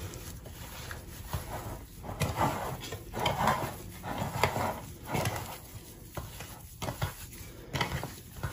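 A bare hand mixing mashed boiled potatoes with spices and chopped coriander in a ceramic bowl: soft squishing and rubbing in irregular strokes, with a few light knocks against the bowl.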